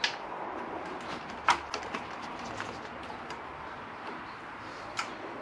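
Light clicks and knocks, the sharpest about one and a half seconds in, as a motorcycle's rubber clutch hose and its metal banjo fitting are worked by hand through the frame, over a steady background hiss.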